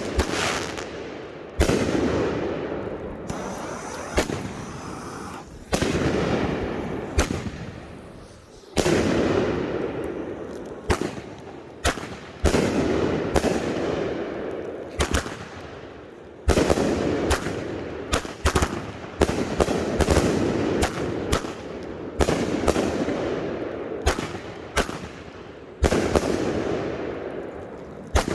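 Consumer firework cakes firing in quick succession: a rapid run of sharp bangs and pops, each with a noisy tail that fades over a second or two, several coming in close clusters.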